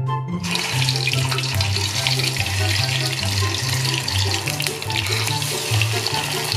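Hot fat sizzling and crackling in a pan, starting suddenly about half a second in, over background music with a plucked bass line.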